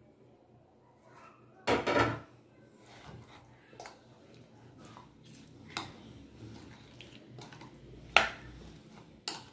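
A metal spoon stirring cubed paneer, capsicum and onion in a thick yoghurt marinade in a ceramic bowl, with a few sharp clinks of spoon on bowl, the loudest near the end. A louder clatter of crockery about two seconds in.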